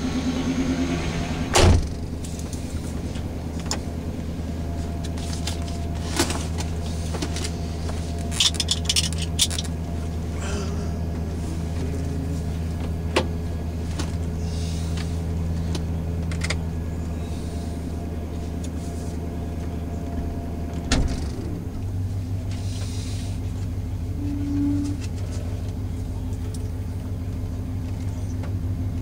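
A 1978 Pontiac Bonneville's 301 cubic-inch V8 with a two-barrel carburettor idling steadily, heard from inside the cabin, with a few sharp clicks. About 21 seconds in there is a clunk, and the idle note then changes to a new steady pitch.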